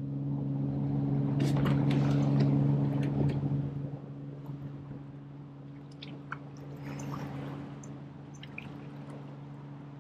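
Water splashing and dripping, loudest a second or two in, with small sharp clicks, over a steady low hum.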